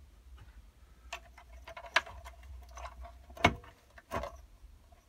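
Irregular clicks and knocks of hands pulling wiring and plastic connectors out of a Razor E100 electric scooter's battery tray, the loudest knock about three and a half seconds in.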